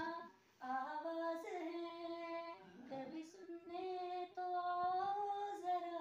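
A woman singing a slow melody alone, without accompaniment, holding long steady notes.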